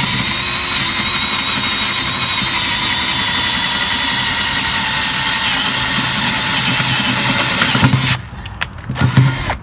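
A 12-volt DeWalt cordless drill boring a hole through the trailer's metal frame: the motor runs steadily with a high whine from the bit in the metal for about eight seconds, stops, then gives one short burst near the end.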